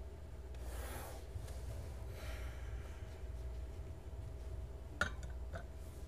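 Soft rustling handling noises, then two light clicks about half a second apart near the end as a folding knife is set down on the glass platform of an electronic kitchen scale.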